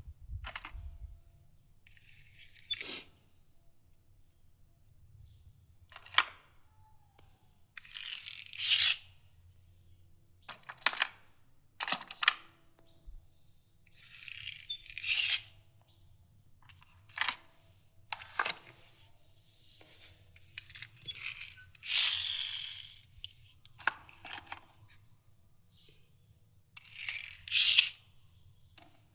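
Small toy cars being handled and pushed about on a surface: a string of short scrapes and clicks with pauses between them, about a dozen in all.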